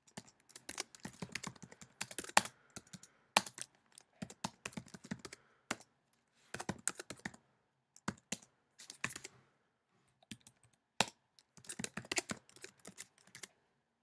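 Typing on a computer keyboard: runs of quick key clicks broken by short pauses.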